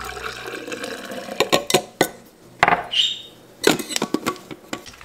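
A stainless-steel travel mug and its plastic lid being handled on a countertop: a series of sharp clicks and knocks, with a short clink that rings briefly about three seconds in.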